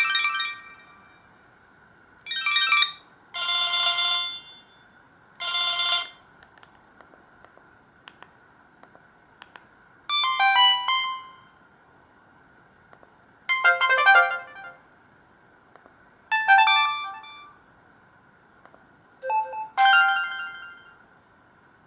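Samsung GT-E2152 mobile phone playing its built-in ringtones in short snippets: seven brief bursts of bright electronic melody, each about a second long, with pauses between them and a few faint clicks in the longest pause. A faint steady high tone runs underneath.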